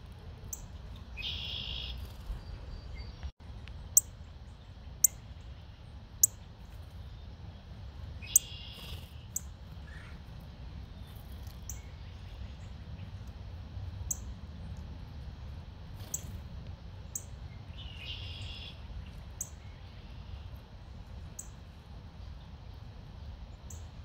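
Small songbirds calling at a seed pile: three short calls about a second long, near the start, in the middle and about three-quarters through, along with scattered sharp high ticks.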